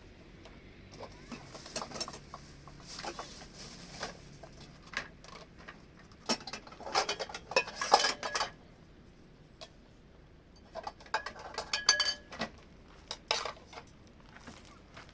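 Scattered clinks and knocks of handled objects, some with a brief ring, coming in two busier flurries, one around the middle and one later on.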